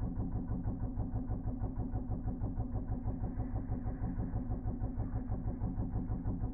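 Espresso capsule machine's pump running while it brews, slowed down into a deep, even throbbing of several pulses a second.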